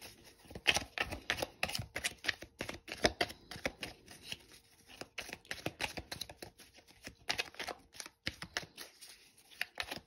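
A deck of tarot cards being shuffled by hand: a fast, irregular run of card slaps and flicks, with a short lull about eight seconds in.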